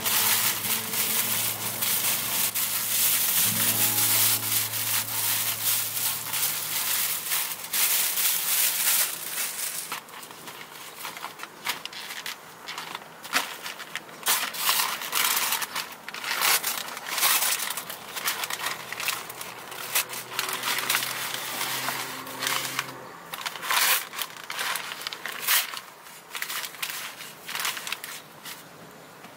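A plastic carrier bag crinkling as it is handled, dense and loud for about the first ten seconds. Then a paper bag rustles and crackles in separate bursts as it is opened out and spread flat.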